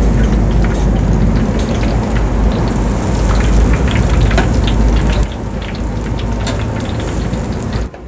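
Battered vegetable fritters deep-frying in a large round pot of oil: a steady sizzle full of small crackles over a low rumble, a little quieter after about five seconds.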